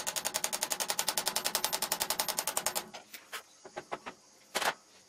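Rapid light hammer taps on a steel socket, about a dozen a second with a metallic ring, driving a new slip ring down onto an alternator rotor shaft. The tapping stops just under three seconds in, followed by a few faint clicks and one louder knock near the end.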